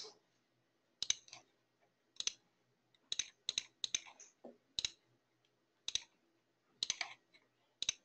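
Faint computer mouse button clicks, about a dozen spread irregularly, some in quick pairs.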